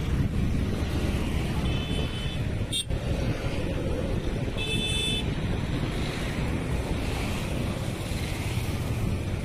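Steady wind rumbling on the microphone, with two brief high-pitched toots about three seconds apart.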